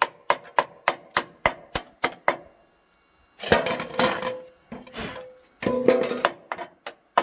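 Chipping hammer knocking slag off a fresh arc-weld bead on steel, about three to four sharp ringing strikes a second, stopping after about two and a half seconds. After a short pause a thin metal sheet scrapes and clatters with a ringing tone as it is moved, and there is another brief clatter near the end.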